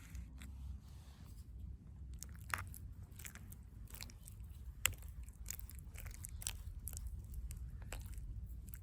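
Meat grinder grinding bananas: a steady low hum with irregular crackling, crunching clicks.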